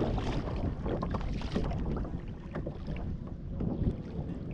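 Wind buffeting the microphone over water slapping and splashing against a fishing kayak's hull, a steady rough rush with small irregular knocks and splashes.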